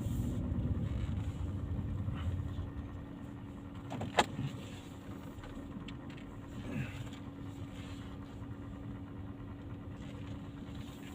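A car running, heard from inside, with a steady low hum; the rumble eases after about four seconds. There is a single sharp click about four seconds in.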